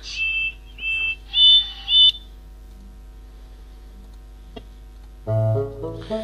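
Four short high steam engine whistle toots in two pairs, the second pair higher, over a background music bed. A brass tune starts about five seconds in.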